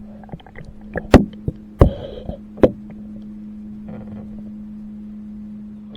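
Steady low hum of the boat's motor while trolling, with sharp knocks and clicks of gear against the boat, the loudest three about a second, a second and three quarters, and two and a half seconds in.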